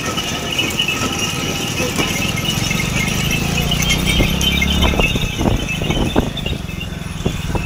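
Bullock carts running on a paved road: hooves and the carts' spoked wheels rattling, with men's voices and a vehicle engine running alongside. A low engine rumble swells for about two seconds around the middle, and short knocks come in the second half.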